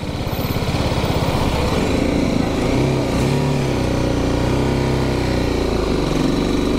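BMW G310GS motorcycle's single-cylinder engine running under way, its engine note changing pitch a few times as the bike rides on.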